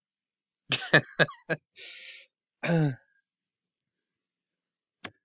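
Coughing and throat clearing: a quick run of short coughs, then a breathy sigh and a short groan falling in pitch. A single click near the end.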